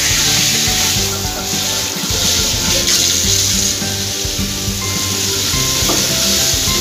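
Water running steadily from a newly fitted single-lever wall shower mixer's tub spout and splashing into a bathtub, a flow check after the install. Background music plays over it.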